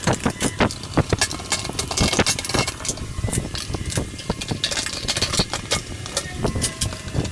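Rapid, irregular clicking and metal clinking of hand tools and scooter parts being worked on, several sharp knocks a second.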